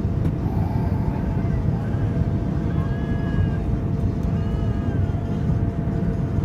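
Airliner cabin noise during the descent to land: a steady low rumble of engines and airflow with a faint steady hum. Faint high, wavering calls come twice, about three and four and a half seconds in.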